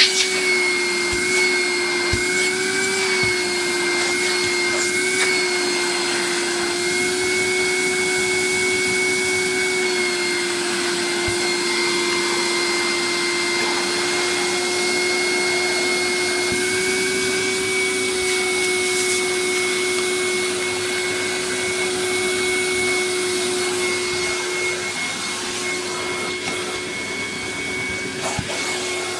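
1989 Hoover Jet vacuum cleaner running steadily, its motor giving a constant hum with a high whine over it.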